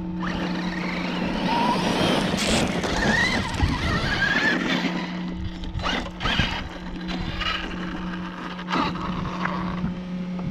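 Large brushless-electric RC trucks driven hard on loose dirt and gravel: motor whine rising and falling in pitch as they accelerate and slow, over the hiss of tyres spraying grit. Several sharp knocks and clicks come through, mostly in the second half.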